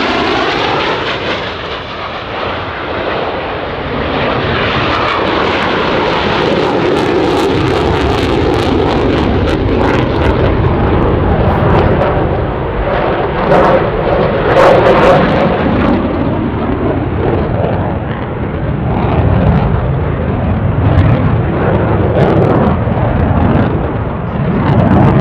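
Eurofighter Typhoon fighter jets flying a demonstration, their twin EJ200 turbofans running loud and continuous. The pitch sweeps as one passes in the first couple of seconds. Sharp afterburner crackle comes through in the middle as a jet pulls a hard turn with reheat lit.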